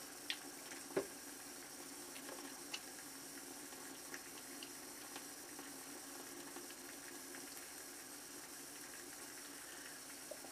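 Low steady hiss of background noise, with a few faint clicks and taps in the first four seconds as an aftershave bottle is handled and the aftershave is patted on.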